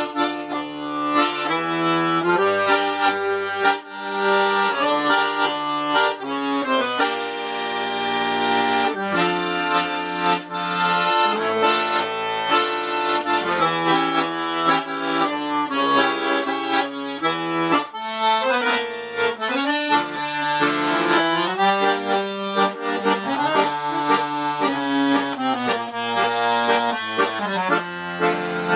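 Piano accordion playing a tango, with chords over low bass notes that change throughout.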